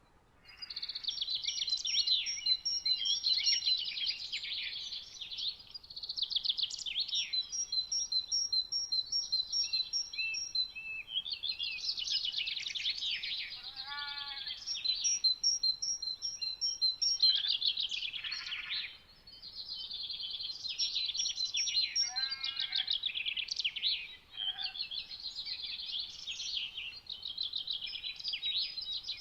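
Songbirds singing in rapid, high-pitched phrases of several seconds each, separated by short pauses, with a lower-pitched series of notes twice.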